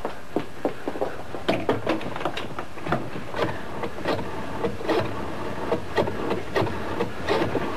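Desk telephone being dialled by hand: the dial whirring and clicking as each digit is turned and released.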